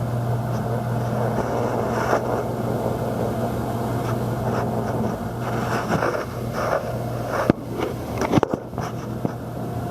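Thirty-year-old gas furnace running: a steady low hum with an even rushing noise. Only one burner tube is burning, with a wafting flame, and the others are dead, which the inspector calls unsafe and inefficient. A few sharp clicks come in the second half.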